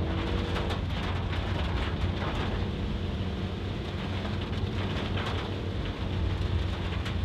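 Heavy rain beating on a moving car, with a steady low rumble of engine and tyres beneath it.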